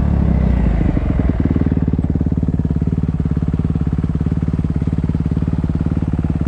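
Off-road vehicle's engine dropping back from revs to idle about a second in, then idling steadily with an even, rapid pulse.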